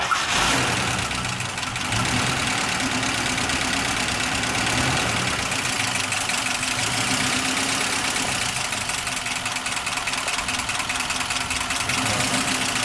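1941 Cadillac's 346 cu in L-head (flathead) V8 idling steadily after a brief surge of revs right at the start, just after being started.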